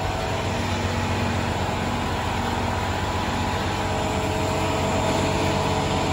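HOLZ-HER Sprint 1310 edgebander running, a steady mechanical noise with a low hum, its end-cutting unit freed up with WD-40 after sticking.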